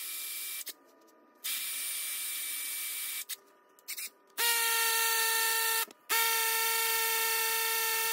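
Milwaukee M12 hammer drill, set to hammer mode, boring with a 5/16-inch masonry bit through vinyl plank flooring into concrete. It runs in four bursts with short pauses between them, and the last two are louder with a steady whine.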